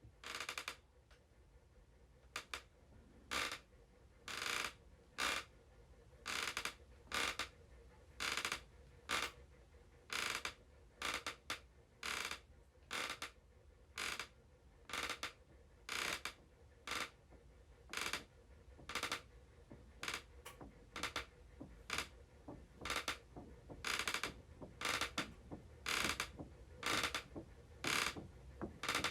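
Foley sound effects: a steady series of short, sharp scraping or clicking strokes, about one a second, some coming in quick pairs.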